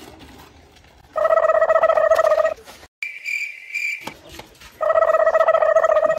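Battery-powered toy machine gun's electronic firing sound: two bursts of a rapid buzzing rattle about a second and a half each. A short steady high beep sits between them.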